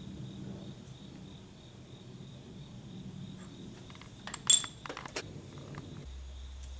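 A thread tap in a T-handle tap wrench being turned by hand into a worn bolt hole in the tractor's frame, to cut threads for a thread-repair insert. A few sharp metallic clinks come about four and a half to five seconds in, over a steady high whine and a low hum.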